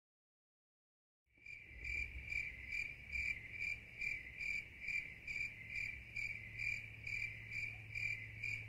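A cricket chirping in a steady rhythm, about two to three high-pitched pulses a second, over a low steady hum. It starts about a second and a half in.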